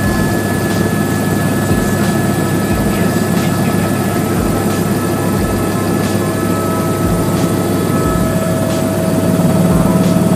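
Helicopter turbine and rotor heard from inside the cabin in flight: a steady drone with several constant high whining tones on top, growing a little louder near the end.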